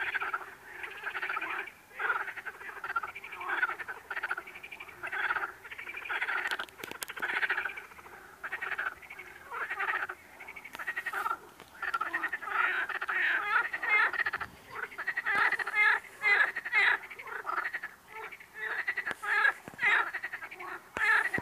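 A chorus of frogs croaking: many overlapping calls, each a rapid train of pulses lasting under a second, following one another with hardly a pause. The calls grow denser and louder about halfway through.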